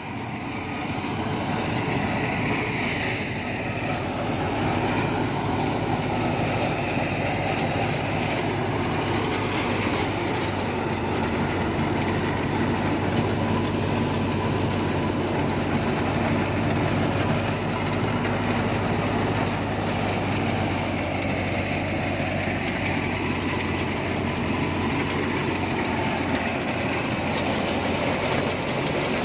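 Tractor-driven wheat thresher running steadily while being fed wheat, with a constant mechanical drone from the engine and machinery.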